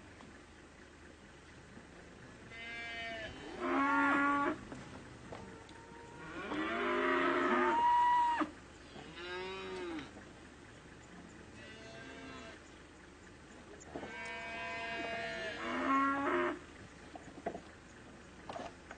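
An animal calling: about five long, drawn-out cries, each lasting a second or two and wavering in pitch, the loudest about seven seconds in.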